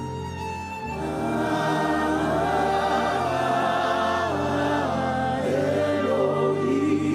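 Gospel worship music: a choir singing slow sustained lines over held keyboard chords and bass, swelling about a second in.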